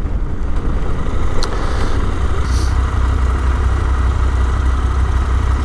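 KTM motorcycle being ridden on the road, heard as a steady low rumble of engine and riding noise.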